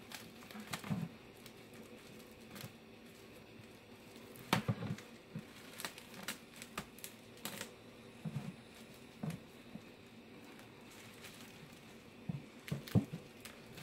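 Hands handling plastic bubble wrap and a roll of tape while taping the wrap down: scattered light clicks and crinkles at an uneven pace.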